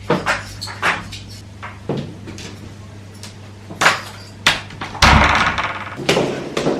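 Household handling sounds: a string of sharp clicks and knocks, then a louder rush of noise lasting over a second about five seconds in.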